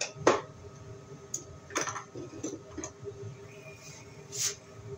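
Hand tools being handled and picked up from a shelf: a few sharp clicks and knocks, the loudest at the start, another about two seconds in and one near the end, over a faint steady hum.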